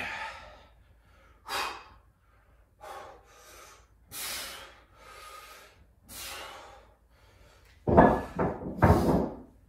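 A person breathing hard from exertion during a set of dumbbell hammer curls: short forceful breaths in and out about once a second, with two louder, heavier exhales near the end.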